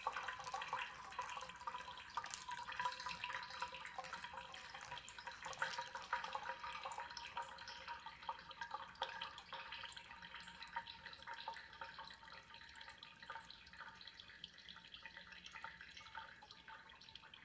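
Hot water poured from a gooseneck kettle into a stainless-steel mesh pour-over coffee dripper, then coffee dripping and fizzing through the filter. The fine patter is densest early and thins out over the later seconds.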